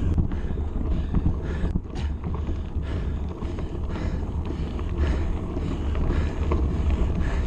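Mountain bike riding up a gravel track: tyres on loose stones, with scattered clicks and creaks from the bike and wind buffeting the camera's microphone as a steady low rumble.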